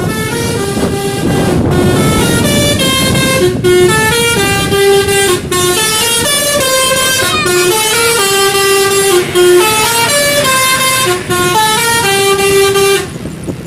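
A bus's multi-tone telolet basuri horn playing a melody: loud held notes stepping from one pitch to the next, over a low rumble. It stops near the end.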